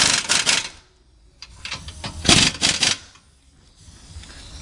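Ratchet wrench clicking in two quick bursts on a bolt of the lower front engine mount, one at the start and one about two seconds in.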